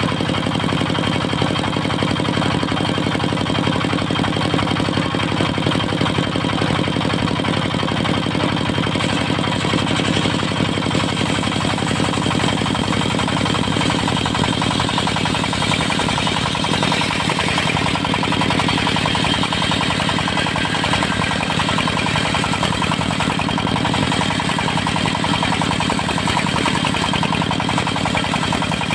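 Diesel engine of a mobile circular sawmill running steadily, with a steady high whine above the engine note.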